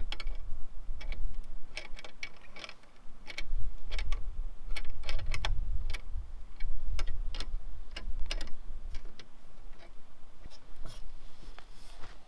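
Irregular metallic clicks from tightening the Yagi antenna's mounting clamp on its pole, over a low rumble that swells around the middle.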